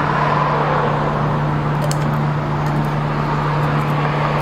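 Steady mechanical hum with an even rushing noise underneath, unchanging throughout, with a few faint light clicks about two seconds in.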